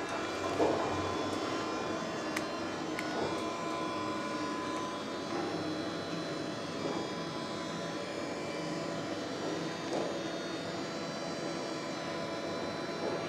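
Cruise ship passenger elevator car travelling down, a steady whirring hum with several steady tones, and a few faint clicks and knocks in the first few seconds.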